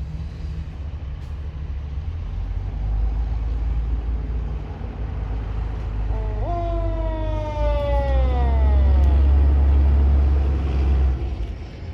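Fire truck pulling out on an emergency call, its engine rumbling and growing louder until it drops away shortly before the end. About six seconds in, the siren gives one short wail, jumping up in pitch and then sliding down over about two seconds.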